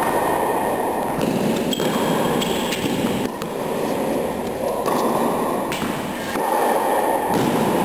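Tennis ball being struck by rackets and bouncing on a hard court during a rally: a series of sharp knocks a second or two apart, over a steady loud low rushing noise.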